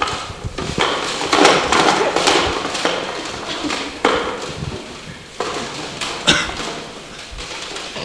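Plastic CD cases clattering and knocking as they are rummaged through in a box, a run of irregular clicks and thuds.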